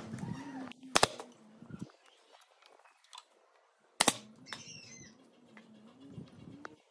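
A nail gun fires, driving nails through wooden slats into a slab. There are two sharp shots, about a second in and about four seconds in.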